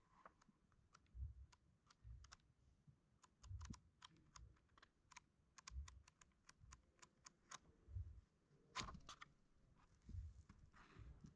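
Pages of a hardcover book being flipped by hand: a quiet run of quick, sharp paper flicks, with soft low thumps from handling the book.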